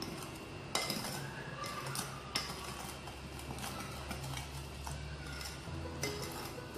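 Wire whisk stirring flour into a sticky egg-and-honey batter in a glass bowl, with scattered clicks and scrapes of the whisk against the glass.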